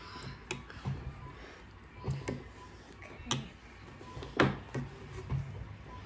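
Eating sounds: a series of short clicks and taps, about seven in all, the loudest a little over four seconds in.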